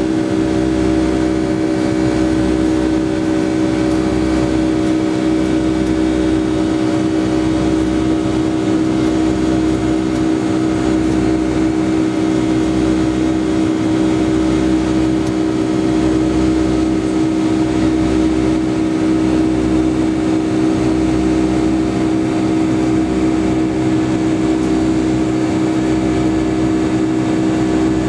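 Boeing 757-200's Pratt & Whitney PW2037 turbofans heard inside the cabin during the climb: a loud, steady drone with a strong hum and several steady tones over a rush of noise. Beneath it, a low throb swells and fades about every two seconds.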